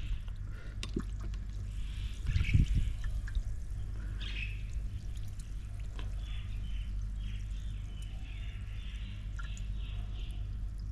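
Club soda fizzing and bubbling in a cup as a small upturned glass of crushed green chilli, ginger and salt sets it foaming (fuljar soda), with a few faint knocks.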